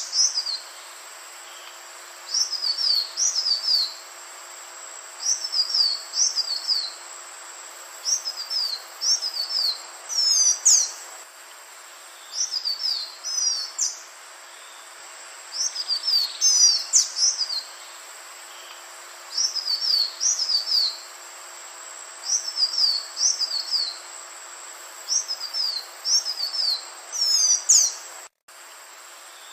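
Green iora singing: short phrases of quick, high whistled notes that slide downward, repeated every two to three seconds over a steady background hiss. The sound drops out for an instant near the end.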